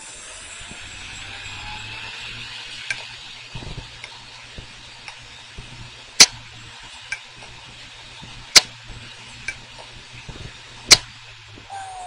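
Opened Western Digital hard drive running with its lid off: the spindle motor hums and its whine rises over the first couple of seconds, then the head actuator knocks three loud clicks about two and a half seconds apart with lighter ticks between. This is the repeated knocking of a faulty drive whose heads keep seeking and failing to read.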